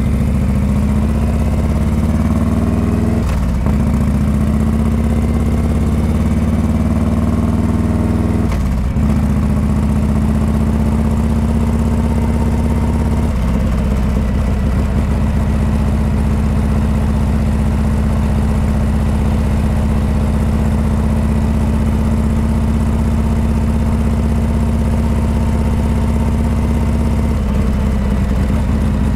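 Harley-Davidson Heritage Classic 114's Milwaukee-Eight V-twin running loud through Rinehart exhaust pipes while riding. The engine pulls up through the gears, with shifts about three and a half and nine seconds in, then holds a steady cruise.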